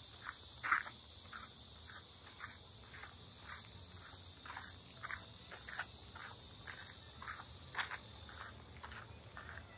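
Footsteps at a walking pace on a paved path, roughly two steps a second, over a steady high chirring of insects.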